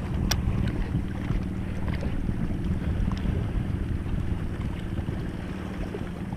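Wind buffeting the microphone in a steady low rumble, over small waves washing against shoreline rocks, with a couple of faint clicks.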